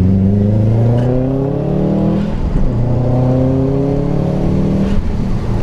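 Subaru WRX's turbocharged flat-four accelerating hard, its pitch climbing through a gear, dropping at an upshift about two and a half seconds in, then climbing again. It runs smoothly, the cylinder 3 misfire cured by a new ignition coil.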